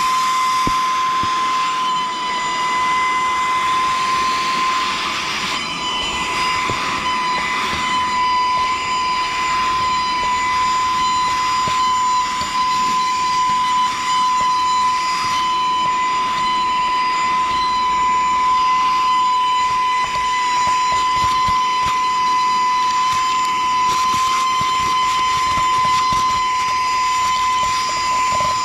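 Saker cordless mini handheld vacuum cleaner running continuously, its motor giving a steady high whine over the rush of air as it sucks up dirt and small rocks.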